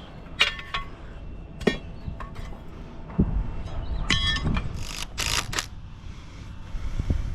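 Metal clinks and knocks a second or so apart, some with a brief ringing, and a short scraping hiss about five seconds in: work on bracing up concrete formwork.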